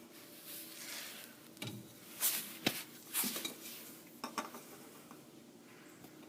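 A few sharp light metallic clicks and knocks with short rustling scrapes, most of them between about two and four and a half seconds in, from handling the new oil filter and tools during an oil change.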